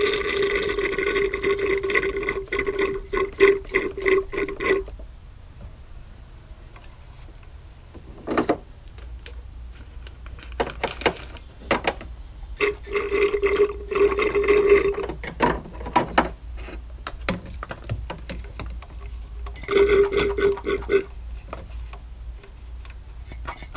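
Fluid being drawn out of a car's power steering reservoir through a thin tube. There are three bursts of a steady buzzing hum with liquid gurgling, each lasting a few seconds, separated by clicks and handling noises.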